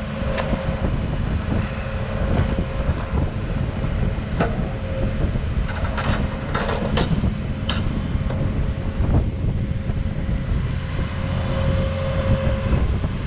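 Heavy machine engine idling steadily, with wind buffeting the microphone and several sharp metallic clinks of a chain being fastened around a tree stump.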